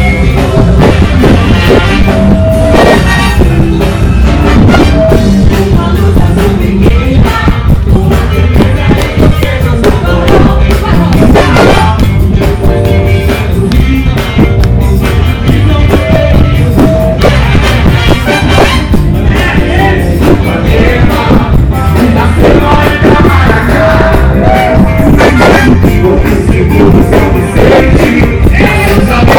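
Live funk band playing loudly and steadily.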